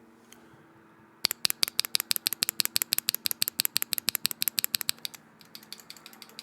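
Akko x HMX Mirror mechanical keyboard switch with a POC stem, capped with a GMK keycap, pressed and released rapidly. It makes a fast run of sharp, clacky clicks, about ten a second, that starts about a second in and stops about five seconds in.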